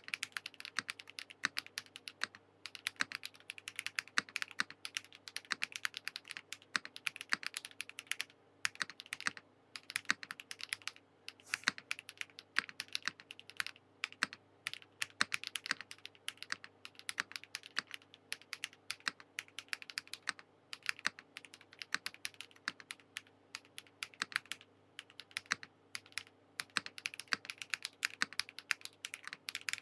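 Continuous fast typing on a Transition Lite TKL mechanical keyboard with an aluminium plate, full foam, HMX Raw switches and Keykobo keycaps. It is a dense run of keystrokes, broken by brief pauses now and then.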